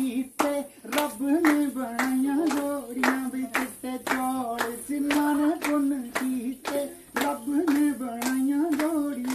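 A group clapping hands in a steady beat, a little over two claps a second, while a woman sings a held, wavering melody over the claps.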